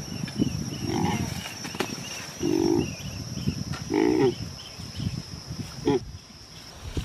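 Pig squealing in four short cries, over scuffing and rustling in leaf litter and soil.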